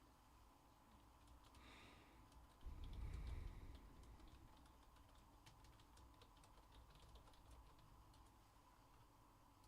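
Faint typing and clicking on a computer keyboard, in quick irregular taps. A brief low thump comes about three seconds in.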